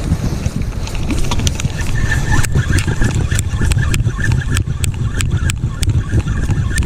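A spinning reel being cranked to take up line on a suspected catfish bite, under a steady low rumble of wind on the microphone. From about two and a half seconds in, sharp clicks come roughly three a second.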